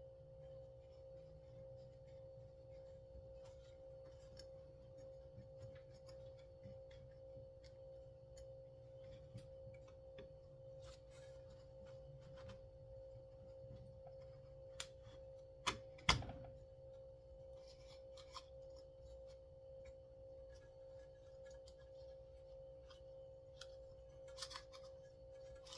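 Faint scattered clicks and taps of small chainsaw recoil-starter parts being handled, with three sharper clicks about halfway through, the last the loudest, over a steady hum.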